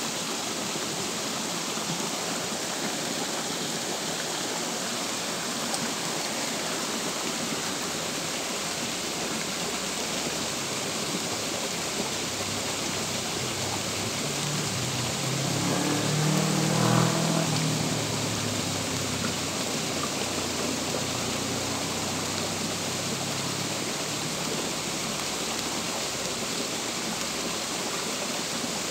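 Steady rain falling on a shallow creek and the leaves around it. About halfway through, an engine swells and fades as it passes.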